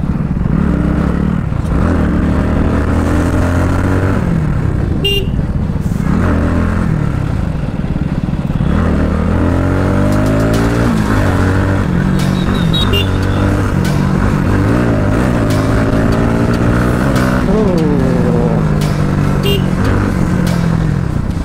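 Bajaj Pulsar NS200's single-cylinder engine running under way, its pitch rising and falling back several times as the rider accelerates and shifts gears.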